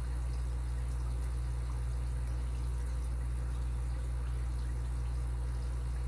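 Steady low hum, with a few faint small ticks of a lock pick working the pins of an Abus 83AL50 brass padlock.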